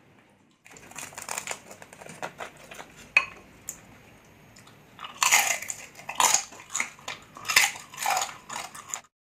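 Close-miked eating: crackly chewing and crunching of crispy deep-fried pork knuckle skin, with a run of much louder, sharp crunches from about five seconds in.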